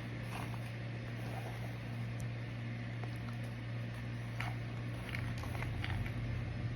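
Microwave oven running with a steady low hum, with scattered faint crackles that come more often in the second half.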